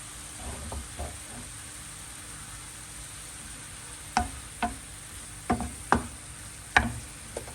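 Onions, bacon and chorizo frying in a pot with a faint steady sizzle, and a spoon stirring them, knocking against the pot about six times in the second half.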